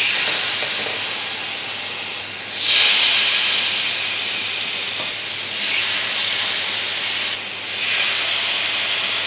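Marinated chicken pieces sizzling on a hot, oiled grill pan. The sizzle surges each time a fresh piece is laid down: about two and a half, five and a half and eight seconds in.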